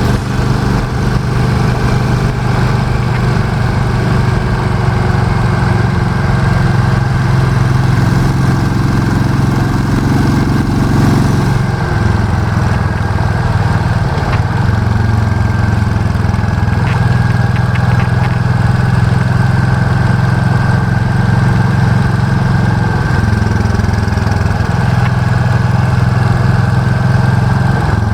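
Royal Enfield Classic 350's single-cylinder engine running through an aftermarket Indori 3K silencer and bend pipe, a steady exhaust note whose pitch steps up and down several times.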